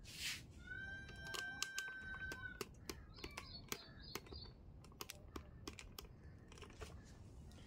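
Light clicks and taps of a phone being handled and repositioned, scattered irregularly, after a short rustle at the start. A steady high tone sounds for about two seconds, starting about a second in.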